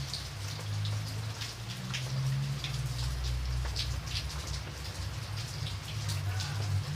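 Raindrops falling and striking a surface, individual drops landing irregularly several times a second, over a steady low hum.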